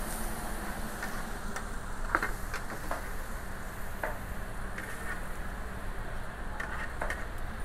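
Steady kitchen background hum and hiss, with a few light clicks and scrapes of metal tongs picking up pulled pork from a metal pan.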